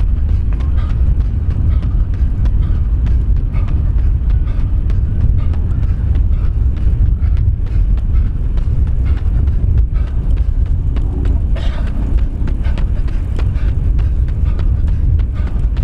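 Heavy wind rumble on the microphone, with the faint, quick, repeated footfalls of a runner underneath.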